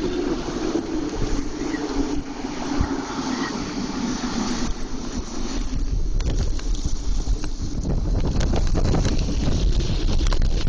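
Gale-force wind gusting at 60-plus mph and buffeting the microphone: a rumbling roar that grows louder and more ragged over the second half. A steady low hum runs under it for the first four seconds or so.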